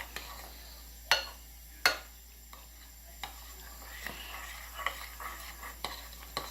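A spoon stirring thick slime of glue and shaving cream in a container, making irregular scraping and squelchy clicks. There are two sharp knocks of the spoon against the container about one and two seconds in.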